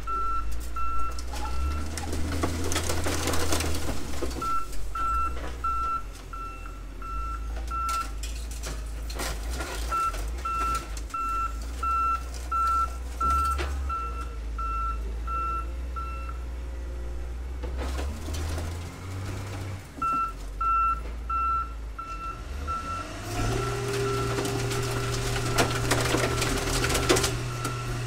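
Wheel loader's diesel engine running while its reversing alarm beeps about twice a second in several spells. Metal scrapes and crunches a few seconds in and again near the end as the car is shoved into the crusher. Near the end an engine revs up to a steady higher note.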